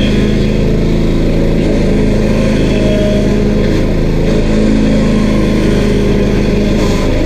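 Stump grinder's 13 HP single-cylinder Honda engine running steadily at a constant, loud level.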